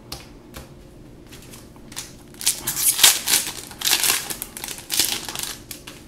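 Foil wrapper of a Magic: The Gathering booster pack crinkling and tearing as it is ripped open by hand, in a run of crackly bursts from about two and a half seconds in to near the end.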